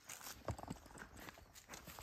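A few uneven footsteps crunching on dry soil and leaves, with light rustling between them. The loudest step lands about half a second in.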